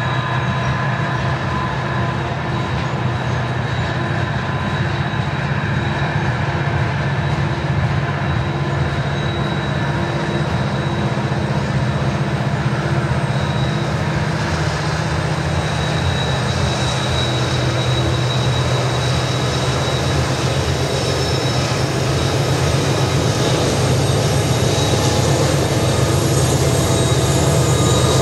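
Loaded coal train's hopper cars rolling around a curve: a steady low rumble of wheels on rail, with thin, high-pitched wheel squeal on the curve. The sound grows slightly louder near the end.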